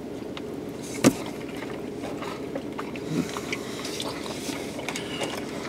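A steady low hum inside a car cabin, with one sharp click about a second in and faint small sounds of chewing and handling food.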